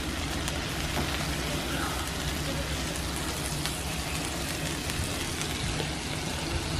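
Sauce yakisoba sizzling steadily on a hot iron teppan griddle, an even crackling hiss, with a steady low hum underneath.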